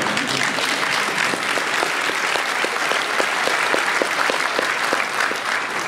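Audience applauding, a dense steady clatter of many hands clapping, beginning to die away near the end.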